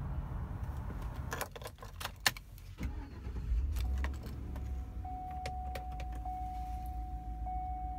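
Keys jangle and click into the ignition of a 2012 Chevrolet Avalanche. About three and a half seconds in, its 5.3-litre V8 cranks, starts and settles into a steady low idle, and a steady high tone sounds from then on.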